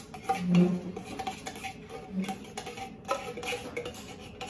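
Light clicks and taps of a metal tin can against a stainless steel pot while milk is poured from it, with a short louder low thump about half a second in.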